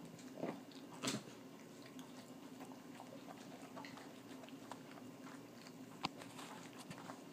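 A dog gnawing and chewing a raw beef rib bone: scattered clicks and crunches of teeth on bone, with a louder crunch about a second in and a sharp crack about six seconds in.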